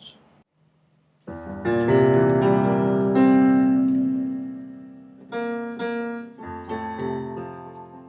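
Piano playing held chords. A loud chord comes in about a second in and slowly fades, then further chords come in near the end and fade.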